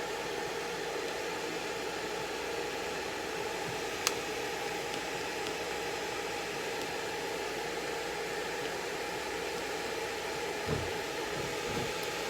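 A hair dryer running steadily, with a single sharp click about four seconds in.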